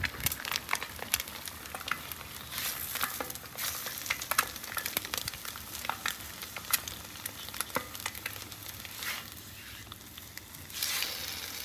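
Eggs frying in butter on a ceramic-coated flat-top griddle: a steady sizzle full of small pops and crackles.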